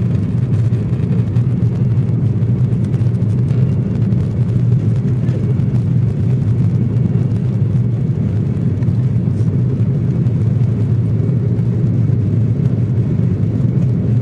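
Steady low rumble of airliner cabin noise, engines and rushing air heard from inside the cabin, during the approach descent.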